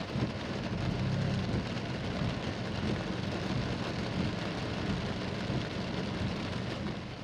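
Heavy rain drumming steadily on a car, heard from inside the car, with a low steady hum underneath.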